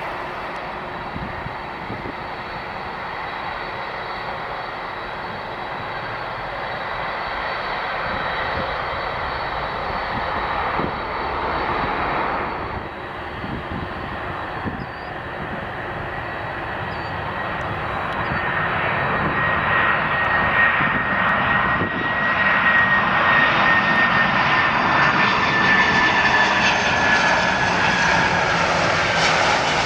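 Jet airliner engine noise: first a Boeing 737-800, then, after a cut about a third of the way in, a McDonnell Douglas MD-11 trijet that grows louder, with a high whine slowly falling in pitch.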